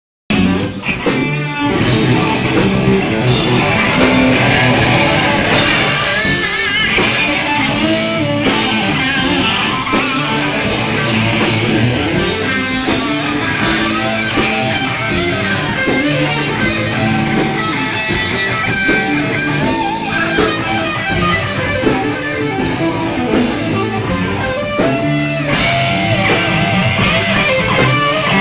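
Live rock band playing loud: electric guitar over a drum kit.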